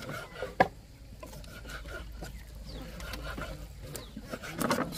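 A knife knocking twice on a wooden chopping board while slicing pork fat, the second knock the louder, followed by quieter cutting and handling sounds.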